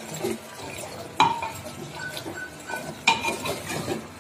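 Metal spoon stirring mutton curry and potatoes in a clay pot, scraping and clinking, with two sharper knocks against the pot about a second in and about three seconds in. Light sizzling from the cooking underneath.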